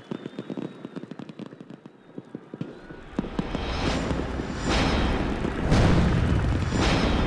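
Sound-effect fireworks: a run of sharp crackling pops, then from about three seconds in a loud, rumbling barrage of fireworks bursts, roughly one a second.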